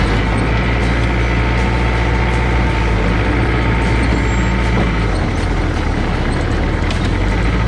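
Furukawa FD40P bulldozer's diesel engine running, its low note shifting and weakening about five seconds in. This is the point where the warm machine starts to bog down.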